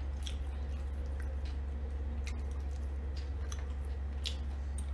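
A steady low hum with a handful of faint, irregularly spaced soft clicks.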